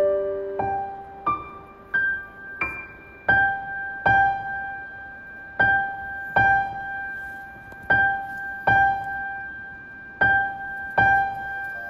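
Background music: a slow, gentle piano melody of single notes, each ringing out and fading, struck about once every two-thirds of a second with one high note returning again and again.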